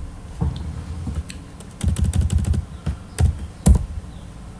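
Computer keyboard typing as a mistyped entry is deleted and retyped: irregular key clicks with a dull thud under each, a quick run of keystrokes about two seconds in and a few single hard presses after it.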